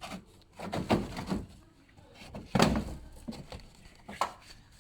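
Several clicks and knocks as the plastic side skirt is unclipped from a BMW E87, the loudest a thud about two and a half seconds in.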